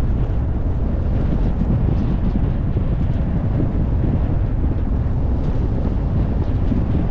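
Loud, steady wind buffeting on the microphone of a camera mounted outside a moving vehicle, mixed with the low rumble of the vehicle driving over a dirt gravel road.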